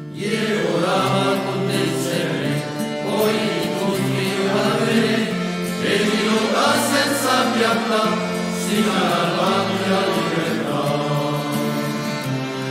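Background music: chanted singing in several voices over low held notes, in swelling phrases.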